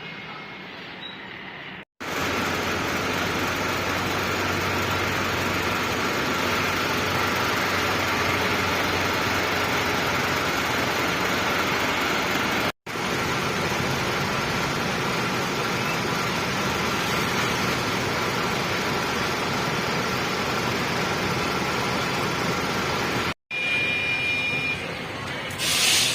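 Steady running of a bus engine with road and traffic noise, broken by two brief cuts to silence. A short sharp sound comes near the end.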